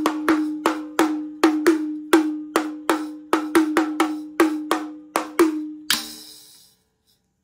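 Plastic toy drum kit tapped with plastic drumsticks in a steady beat of two to three strokes a second, each hit ringing on in a tinny note. About six seconds in comes a single hit on its small metal cymbal, still partly coated in blue protective film, which rings briefly and dies away.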